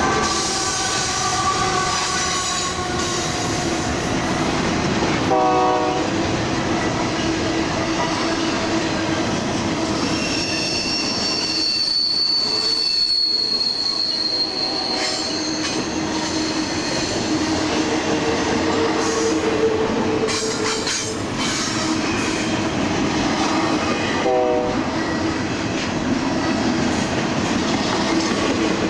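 Freight train's cars rolling past: a steady rumble and clatter of steel wheels on rail, with wheels squealing against the rail in the curve, including a long high squeal near the middle.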